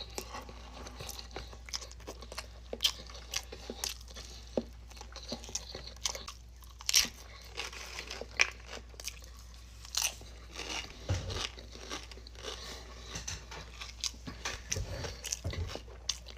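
Close-miked chewing and biting of garlic bread, with many short crunches and wet mouth clicks.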